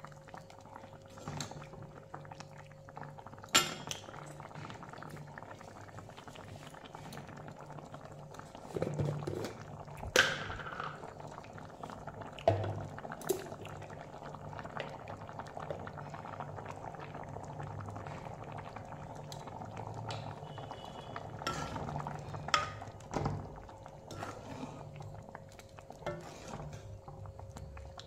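Thick curry boiling hard in a metal kadai, bubbling steadily, while a metal ladle stirs and scrapes through it and now and then knocks sharply against the pan, about five clear knocks, over a steady low hum.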